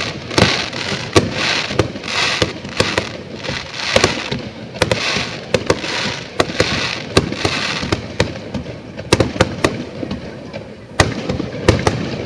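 Fireworks display: many sharp bangs of shells bursting at irregular intervals, with a rushing hiss between them.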